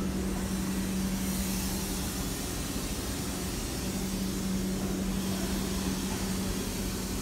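BIESSE-Viet drum calibrating sanding machine running: a steady low drone with hiss over it, the drone dipping briefly a couple of seconds in.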